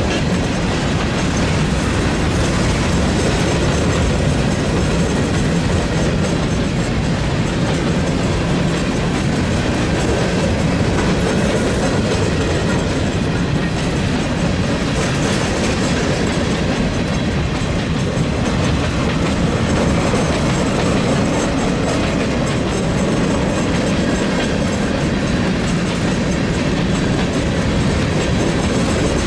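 A train's cars rolling steadily past on the rails.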